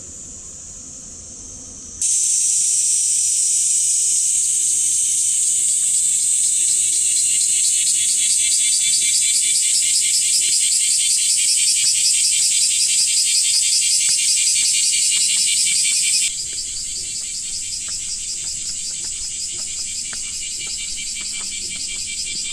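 Loud chorus of insects: a dense, high-pitched trill pulsing rapidly. It jumps louder about two seconds in and drops back suddenly about two-thirds of the way through.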